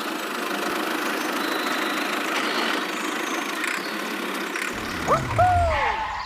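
Steady engine-like mechanical running noise, with short swooping, whistle-like pitch glides about five seconds in.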